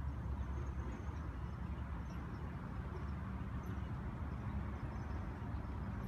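Outdoor ambience: a steady low rumble with faint, scattered high chirps.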